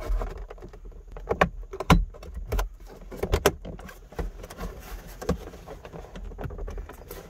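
Plastic overhead trim cover at a C7 Corvette's rear-view mirror being wiggled down off its spring clips: a run of irregular creaks and sharp plastic clicks, the strongest about two seconds and three and a half seconds in. It sounds like tearing the car apart, but it is only the spring clips letting go.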